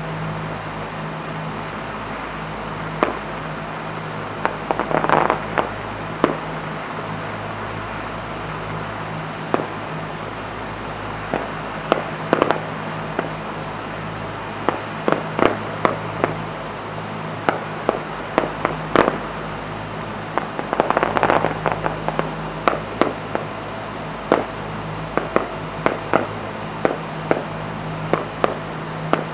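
Aerial fireworks shells bursting: scattered sharp bangs throughout, with spells of rapid crackling about five seconds in and again around twenty-one seconds, over a steady low hum.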